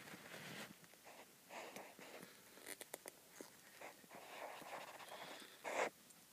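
Faint rustling and a few light clicks as a hand handles and sets down a Lego minifigure on its plastic display stand on carpet, with a short louder rustle near the end.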